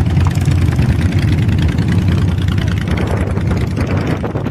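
Several motorcycle engines running at low speed and idling as a group of motorcycles pulls in, a steady low rumble.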